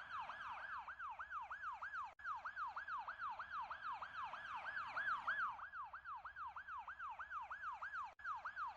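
Emergency-vehicle siren in a fast yelp, its pitch rising and falling about three times a second, with two very short breaks.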